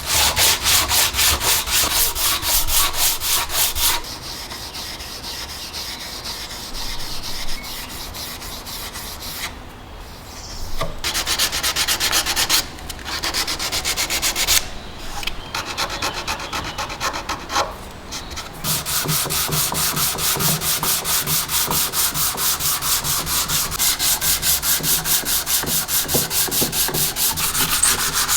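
Hand sanding with abrasive paper, rapid back-and-forth rubbing strokes in several bouts with short pauses, getting louder and steadier in the last third.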